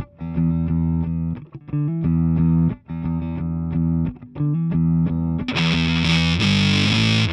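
Dean Razorback ML electric guitar played through a Vick Audio '73 Ram's Head fuzz pedal into a Marshall JCM 800 combo: a heavy, stop-start fuzzed riff with short breaks between phrases. About five and a half seconds in, drums with cymbals come in and the riff carries on continuously, with a sliding note near the end.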